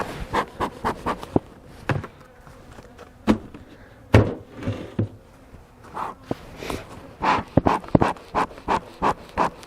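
Bee smoker bellows puffing in quick repeated strokes, about three a second in the second half. Several sharp knocks are mixed in, the loudest about four seconds in.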